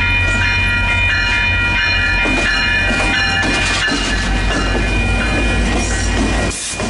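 VIA Rail passenger train passing close by: a steady low rumble with the coaches' wheels clicking over the rail joints. Several steady high ringing tones carry on over it, and the sound dips briefly near the end.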